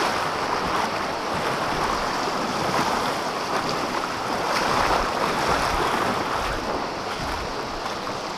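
Fast, shallow mountain creek rushing over rocks close to the microphone, with splashing as someone wades through it.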